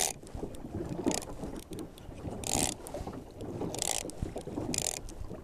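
Waves splashing against the hull of an old wooden boat on a choppy sea, in short hissing splashes every second or so, over a low rumble of wind on the microphone.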